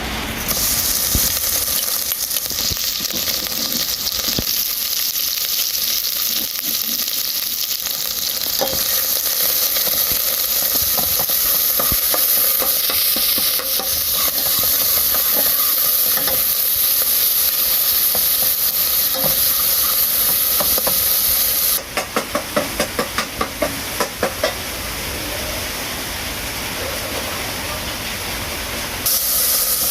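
Food sizzling as it fries in hot oil, a loud steady hiss. Partway through, the sizzle drops back and a quick run of about ten knocks, roughly four a second, is heard before the loud sizzle returns near the end.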